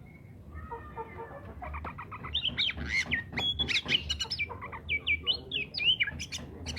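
Oriental magpie-robin (kacer) singing a rapid, varied song of sharp whistled notes and clicks. It starts faint and grows louder about two seconds in.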